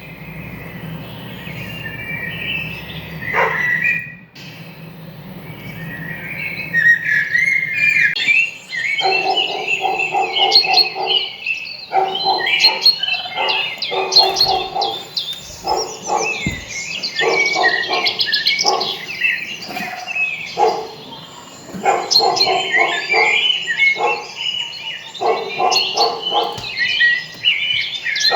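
Many small birds chirping and twittering in a busy chorus. From about nine seconds in, a lower repeated call joins in spells of about a second, and the sound briefly breaks off about four seconds in.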